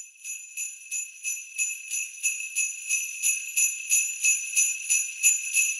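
Jingle bells (sleigh bells) shaken in a steady rhythm, about three shakes a second, growing slightly louder: the bell intro of a music track.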